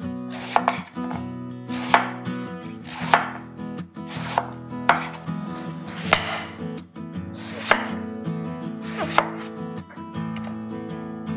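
Chef's knife slicing an eggplant into rounds on a wooden cutting board, about eight slow, evenly spaced cuts, each a short swish through the flesh ending in a knock of the blade on the board.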